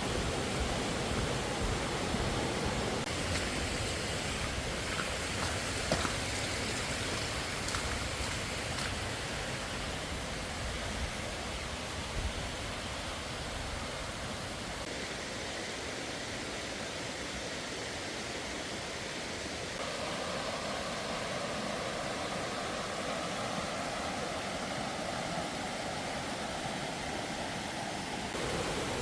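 Mountain stream rushing over rocks: a steady wash of water noise whose tone shifts about two-thirds of the way through.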